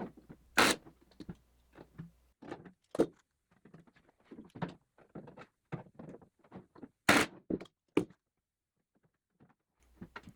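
Riveting on the aluminium landing-light bracket in an RV-14 wing leading edge: an uneven run of small clicks and rattles broken by several sharp, loud snaps as rivets are set.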